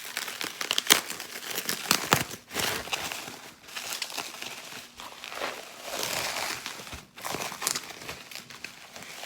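Plastic packaging crinkling and crackling as it is handled and pulled open, with a few sharp crackles and tearing sounds.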